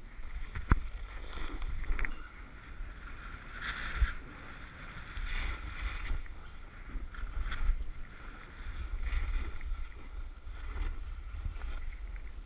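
Snowboard scraping and skidding over chopped-up snow on a steep mogul run, the scrape swelling and fading with each turn, with wind buffeting the helmet camera's microphone. Several sharp knocks come through as the board rides the bumps.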